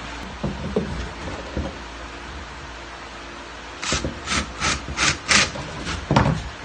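Cordless drill boring a pilot hole through clamped cedar fence-picket strips, run in a quick series of short rasping bursts about three a second, after a few light knocks as the wood and bolt are handled.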